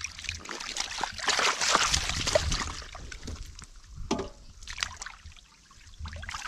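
Hands splashing and sloshing in shallow muddy water while grabbing at a catfish, with scattered small splashes and drips; the splashing is loudest about one to two and a half seconds in.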